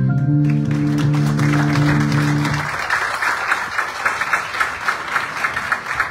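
Sustained chords of a video's closing music, stopping about two and a half seconds in, overlapped by an audience's applause that starts just after the beginning and carries on.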